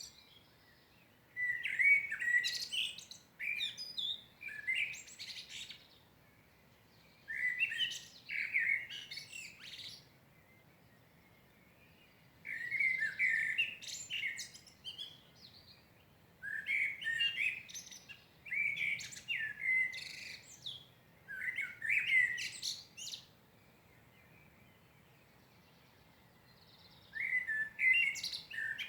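A songbird singing in separate warbled phrases of two to three seconds each, with gaps of a few seconds between them.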